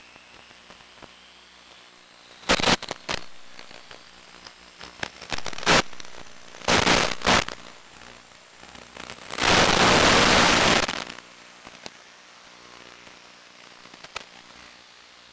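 Steady faint hiss broken by crackling bursts of static: several short clusters, then one loud burst lasting about a second and a half just past the middle. Typical of radio noise on the audio channel of an analog FPV video link.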